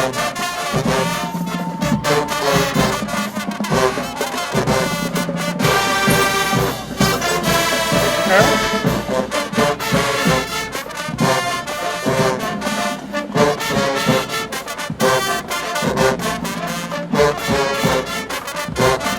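Marching band playing loudly: a full brass section with trombones and trumpets over a driving drum line.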